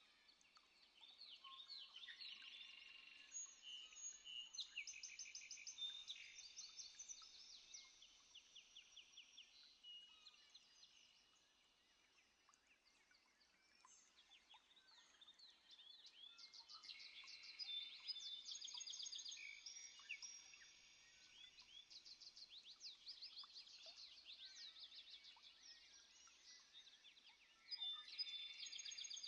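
Several birds singing together, overlapping high trills and quick runs of short repeated notes that swell and fade in waves.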